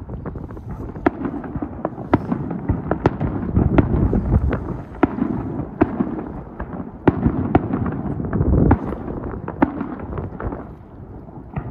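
Aerial fireworks bursting in rapid succession: many sharp cracks and bangs, several a second, over a continuous low rumble of booms.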